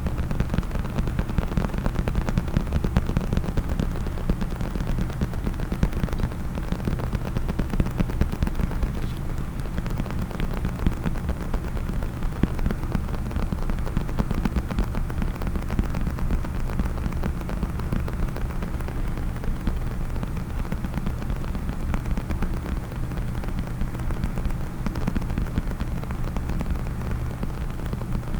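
Fingers tapping and scratching rapidly on a case, a dense, continuous stream of small clicks without a pause.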